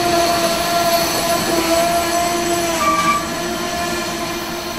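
Amtrak passenger train rolling past and away on the track, with a steady, slightly wavering whine over the rail noise. The sound eases a little about three seconds in as the last coach clears.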